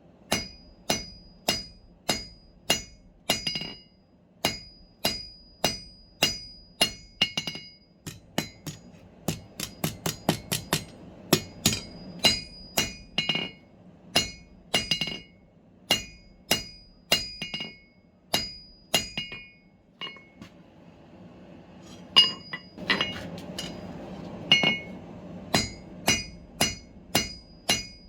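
Blacksmith's hammer striking steel on an anvil at about two blows a second, each blow ringing bright and metallic. The blows thin out and pause briefly about twenty seconds in, then resume.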